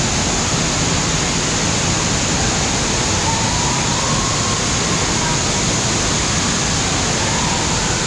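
Steady rush of water-park noise: running and splashing water from the pools, slides and fountains, with faint distant voices in the mix.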